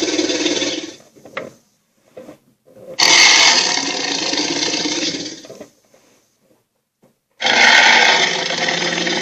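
Dragon toy playing its built-in sound effects: a rough, noisy sound that stops about a second in, another from about three seconds in to nearly six, and a third starting about seven and a half seconds in.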